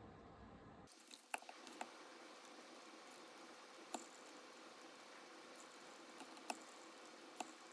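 Near silence: a faint steady hiss with a few soft, scattered clicks as a robot arm slowly draws its vertical cutting wire through a block of Styrofoam.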